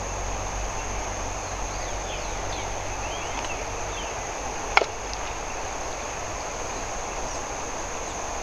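Steady high-pitched insect drone over a broad background hiss, with a few faint chirps in the first half and one sharp click about five seconds in.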